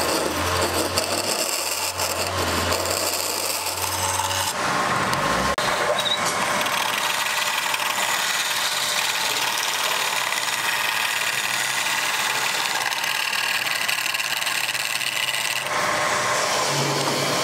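Wood lathe running while a hand-held turning tool cuts into the spinning wooden goblet blank: a steady scraping hiss of steel on wood, over the low hum of the lathe motor in the first few seconds.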